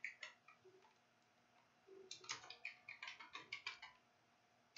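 Faint typing on a computer keyboard: a few keystrokes at the start, then a quick run of about a dozen keys from about two seconds in to nearly four seconds.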